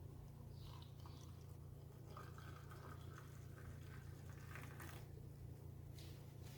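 Near silence: a steady low hum with a few faint clicks and rustles.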